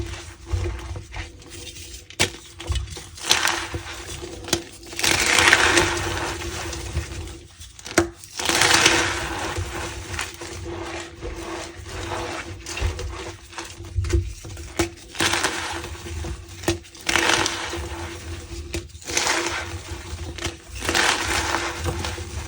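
Reformed gym chalk being crushed and squeezed, giving squeaky crunches in repeated bursts with crackling in between.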